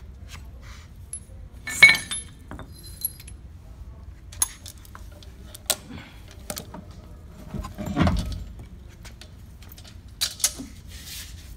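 Steel chain clinking against a truck wheel: scattered light metallic clinks and jangles, the loudest about two seconds in, with a duller thump about eight seconds in.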